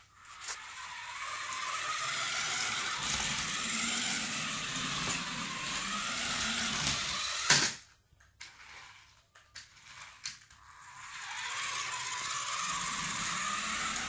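Small electric motor and plastic gears of a toy remote control jeep whirring as it drives, the pitch wavering with its speed. About seven and a half seconds in there is a sharp knock, then it stops, with a few light clicks, before the whirring starts again about four seconds later.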